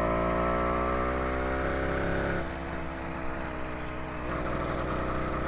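80cc two-stroke bicycle engine kit running under way as the motorized bicycle pulls off, with a steady engine note. About two and a half seconds in it drops to a quieter running note as the throttle eases.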